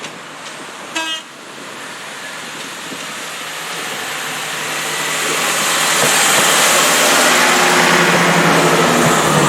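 A train gives a short toot on its horn about a second in, then its noise swells steadily louder as it draws near and passes, with a low engine drone under the rush.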